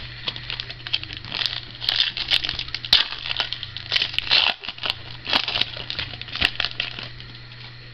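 Foil wrapper of a Contenders football trading-card pack crinkling and tearing as it is pulled open by hand: a run of irregular sharp crackles that dies away near the end.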